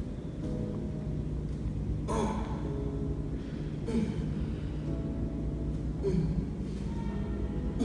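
A man breathing hard during one-arm dumbbell rows: four short breaths, about one every two seconds, in time with the reps. Background music runs underneath.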